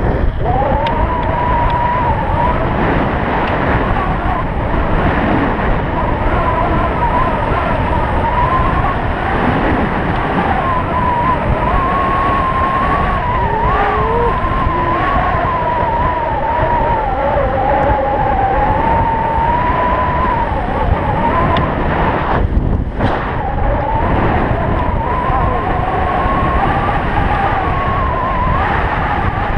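Stealth Bomber electric bike speeding downhill, with heavy wind rush on the helmet camera's microphone. Over it runs a high whine from the bike that wavers up and down in pitch with speed. The sound drops out briefly about three-quarters of the way through.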